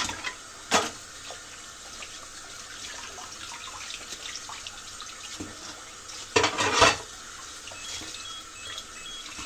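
Arzum Okka Turkish coffee machine boiling the coffee in its pot: a steady hiss and bubbling, with two brief louder bursts about a second and six and a half seconds in. Near the end a string of short high beeps sounds, the machine signalling that the coffee is ready.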